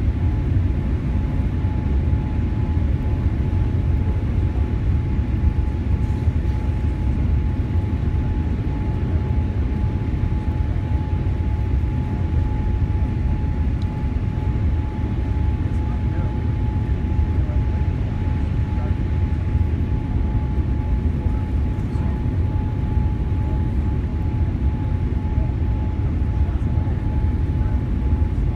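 Steady cabin noise inside a Boeing 787-8 airliner on approach: a low rumble of engines and airflow, with a thin steady tone over it.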